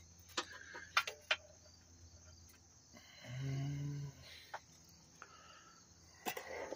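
Quiet outdoor background with faint steady insect chirring, a few light clicks and taps, and a brief low hum about three seconds in.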